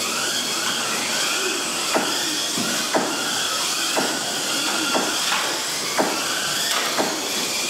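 Several Kyosho Mini-Z box-stock cars racing: their small stock electric motors whine, rising and falling in pitch as they accelerate and brake, over a steady hiss. A sharp tick sounds about once a second from about two seconds in.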